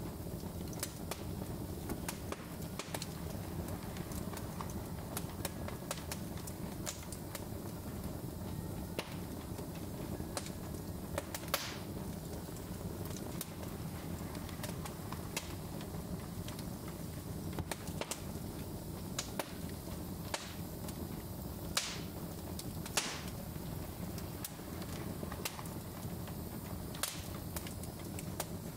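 Wood fire in a fireplace crackling and popping: irregular sharp snaps, a few louder than the rest, over a low steady rumble of the burning logs.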